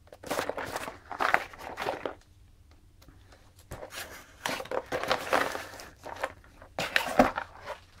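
Box cutter slitting the packing tape on a small cardboard box, with cardboard scraping and rustling as the box is handled, and a sharper rustle near the end as the flaps are pulled open.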